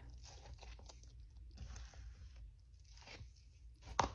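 Bearded dragon biting and chewing at a pile of crumbly food, a run of soft scratchy crunches, with one sharp tap near the end.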